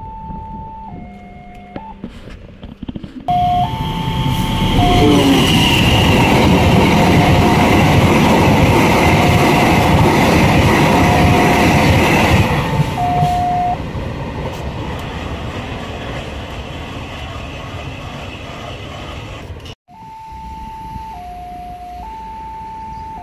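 Electronic level-crossing warning alarm sounding two alternating tones, about a second each. From about three seconds in, a passing train's loud rumble of wheels on the rails drowns the alarm, fading gradually after about thirteen seconds, and near the end the two-tone alarm is heard alone again.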